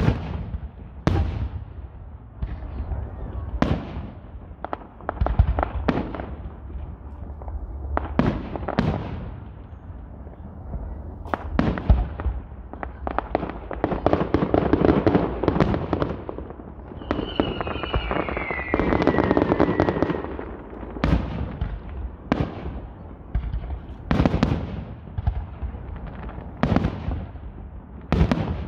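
Fireworks bursting in a steady series of sharp booms, with denser crackling stretches around the middle and one falling whistle about two-thirds of the way through.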